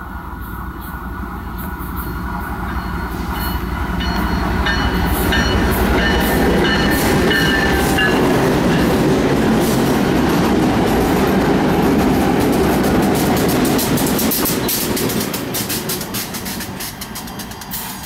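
Five diesel-electric freight locomotives running light, with no cars, passing close by. The engine rumble builds to its loudest in the middle, wheels click and rattle over the rail joints in the second half, and the sound fades as the units pull away.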